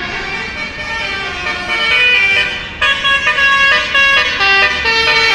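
A bus's Basuri telolet horn playing a tune of held notes that change pitch step by step.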